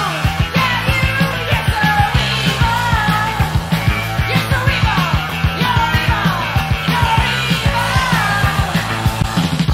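Rock music with a steady, fast drum beat and a melody that slides up and down over it.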